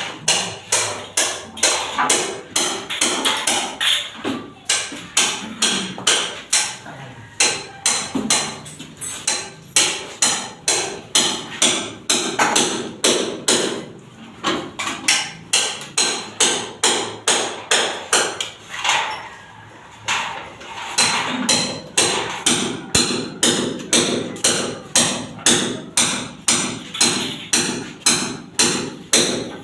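Hammer striking in a steady rhythm, about two blows a second, with a few short pauses between runs of strikes.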